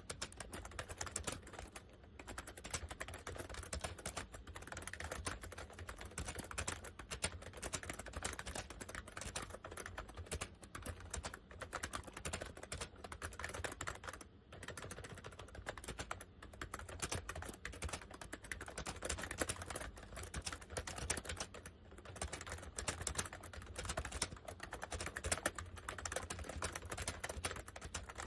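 Honeywell 101WN/WT computer keyboard being typed on fast and steadily, a dense run of key clicks with a few brief pauses. It is a cheaply built board with what appear to be dye-sub PBT keycaps.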